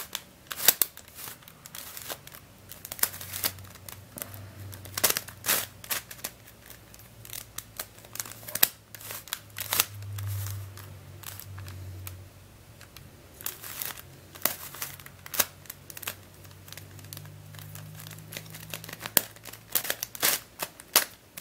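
Dayan + MF8 pentahedron twisty puzzle being turned by hand: irregular clicks and clacks as its plastic layers are twisted past one another.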